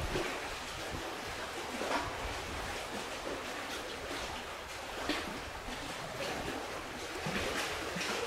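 Wind and waves over open water: a steady rushing noise with brief surges about two and five seconds in.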